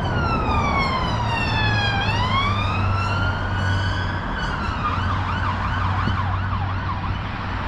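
Police car siren passing: one slow wail falling for about two seconds and then rising again, switching to a faster yelp a few seconds later, over the steady hum of road traffic.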